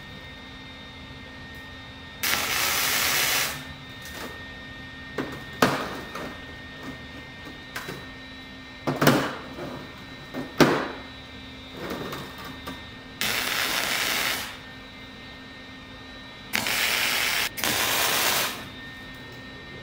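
MIG welder tack welding the corners of steel flat-bar frames: four short bursts of steady arc hiss, each about a second long, the last two nearly back to back. A few sharp metal clanks come between the first and second bursts.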